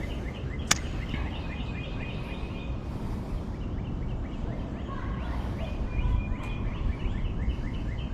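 Birds calling in repeated runs of short, falling chirps over a steady low rushing background, with one sharp click just under a second in.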